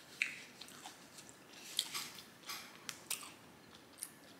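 Close-miked chewing with irregular wet lip smacks and mouth clicks.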